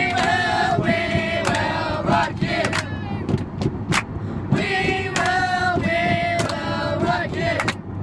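A group of voices singing together in two phrases, with hands clapping along, most plainly in the pause between the phrases. A steady minibus engine rumble runs underneath.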